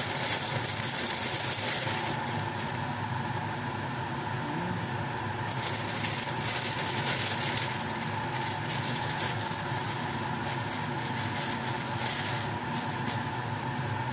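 Steady hum with a crackling hiss that swells and fades: lettuce leaves sizzling in a wok over a gas burner. The hiss is strongest in the first two seconds, again around six to eight seconds in, and briefly near the end.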